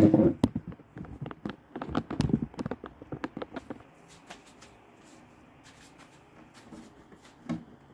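A quick run of light clicks and knocks as a window weatherstrip trim is pushed and worked onto a car door by hand. They thin out after about four seconds, with one louder knock near the end.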